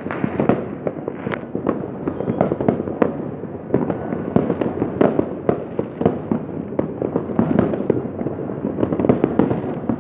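Fireworks going off in a dense, unbroken barrage, many at once, with sharp bangs and crackles of varying loudness following one another without a pause.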